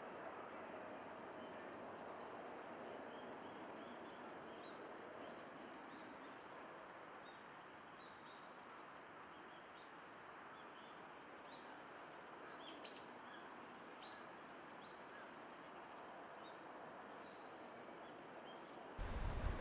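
Faint outdoor ambience: a steady distant background hush, with small birds chirping now and then and two louder chirps a little past the middle. Just before the end it cuts suddenly to a louder low rumble of wind on the microphone.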